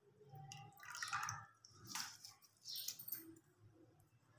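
Faint, irregular wet drips and plops from a pot of cooked daal, a few soft separate sounds about a second apart.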